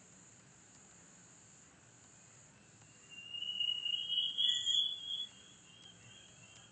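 A high-pitched, cricket-like trill starts about three seconds in, rises slightly in pitch and lasts about two seconds; otherwise near silence.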